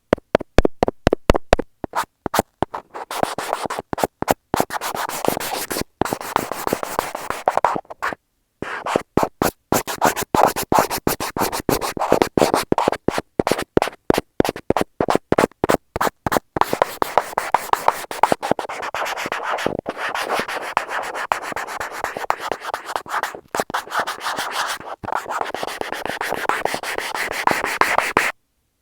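A stylus touch pen tapping and scratching directly on an earphone's inline microphone: rapid, irregular clicks mixed with stretches of close, scratchy rubbing. It stops abruptly near the end.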